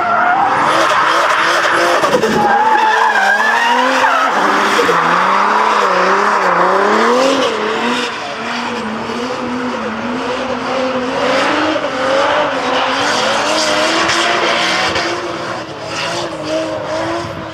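Toyota Supra drift car's engine revving hard mid-drift, its pitch wavering up and down as the throttle is worked, with the tyres squealing and skidding. The sound drops somewhat in loudness about eight seconds in.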